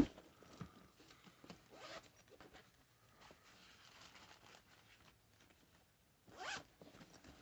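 Zipper on a shoulder sling bag's pocket being worked, with faint rustling and small clicks of the bag being handled, and one brief, louder zip about six and a half seconds in.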